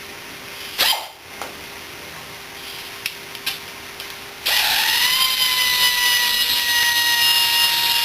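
A few light metal clicks and a knock, then about halfway through a power drill spins up to a steady whine and runs for about four seconds, driving out bolts on a Lifan 140 engine.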